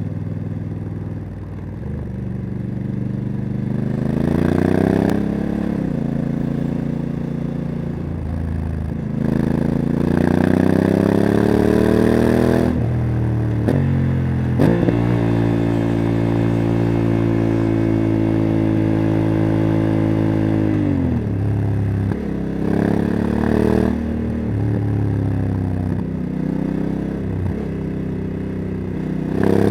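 Honda CRF1100 Africa Twin's parallel-twin engine with a LeoVince exhaust, pulling hard up through the gears. The pitch rises and then drops suddenly at each automatic DCT gearshift, holds steady for several seconds in the middle, then falls as the bike slows, before rising again near the end.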